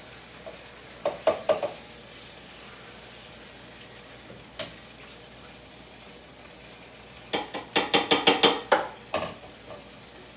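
Browned stew meat sizzling faintly in oil in an enamelled cast-iron pan while a wire skimmer and a wooden spatula scrape and clink against the pan and plate as the pieces are lifted out. There is a short cluster of clinks about a second in and a longer rapid run of louder clinks near the end.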